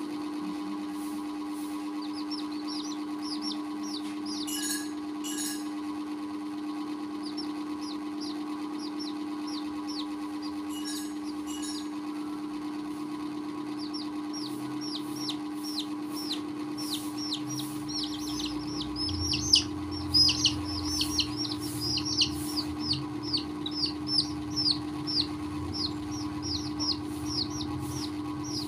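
Young chicks peeping: quick short peeps that fall in pitch, scattered at first, then coming thick and louder in the second half, over a steady low hum.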